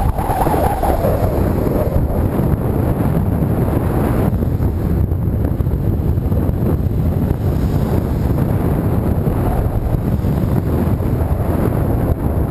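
Wind buffeting the microphone of a camera riding on a moving bicycle, a steady deep rumble.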